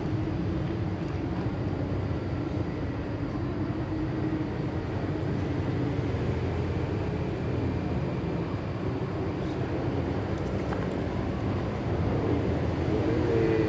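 Steady low rumble of a running engine or motor.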